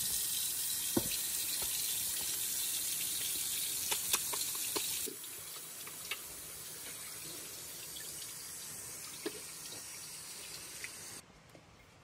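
Tap water running into a hammered copper sink basin while hands wash under it with a bar of soap, with a few small knocks and taps. The water sound drops quieter about five seconds in and falls away near the end.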